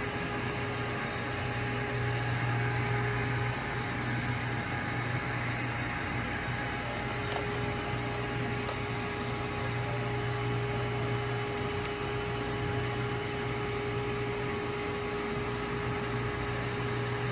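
Steady machine hum: a constant low drone with a fainter steady whine above it, unchanging throughout.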